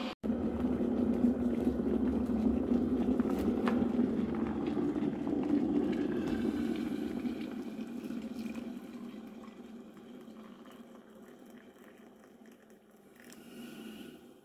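Dictrolux electric kettle at the boil, then its hot water poured into a ceramic mug over a tea bag. The water noise is loud for the first several seconds and then trails off.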